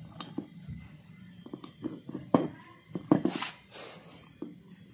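Metal clicks and knocks from hands handling a Yamaha Mio cylinder head and its camshaft parts, with the loudest knocks a little past halfway and a short scraping hiss right after them.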